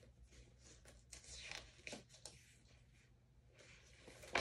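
Faint rustling and soft handling noises from a picture book being held up and moved, a few brief rustles about halfway through and a sharper one near the end.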